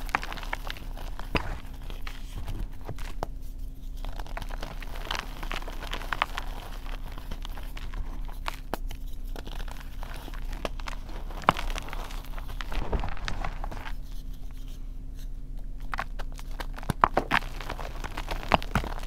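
Hands crushing and crumbling pieces of reformed gym chalk into powder: irregular soft crunches and crackles, with a few sharper crunches about two-thirds of the way through and a cluster near the end.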